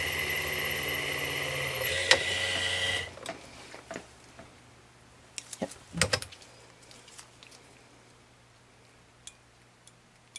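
Perio Star motorized dental instrument sharpener running with a scaler blade held against its spinning stone, a steady motor whine with a sharp click about two seconds in; the motor stops about three seconds in. After that come a few light clicks and a knock as the instrument is taken out and handled.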